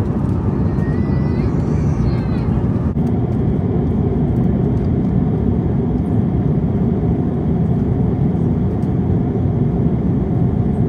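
Steady rushing roar inside an Airbus airliner's cabin, the noise of the engines and airflow.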